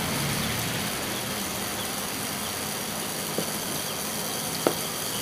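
Steady background hiss, with two small clicks in the second half as the tiny plastic gears of a fan's synchronous swing motor are handled.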